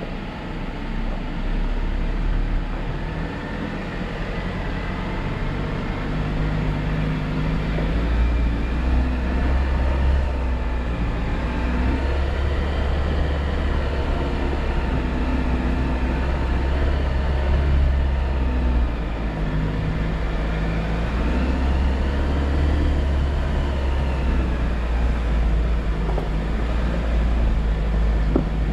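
Jeep Wrangler engine running as it drives along, a steady low rumble with the engine note rising and falling a few times.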